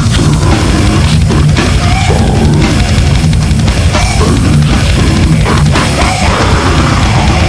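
Heavy metal band recording from a demo tape: distorted electric guitars and bass over a fast, pounding drum kit, loud and dense.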